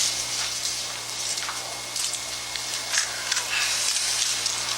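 Steady tape hiss with a low hum from an old VHS soundtrack, with a few faint clicks and knocks scattered through it.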